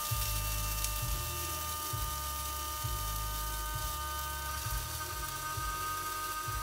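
Small electric coffee grinder running with a steady motor whine as it grinds coffee beans, held down under the hand, with a low rumble underneath that shifts about once a second.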